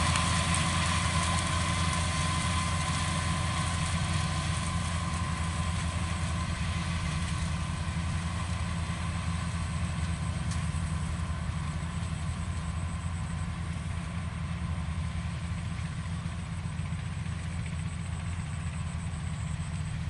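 Farm tractor's diesel engine running steadily as it plows a field, a deep even hum that slowly grows quieter.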